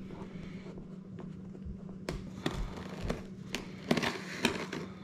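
A shipping box and its packaging being handled and opened: crinkling and rustling, with a string of sharp taps and scrapes in the second half. A steady low hum runs underneath.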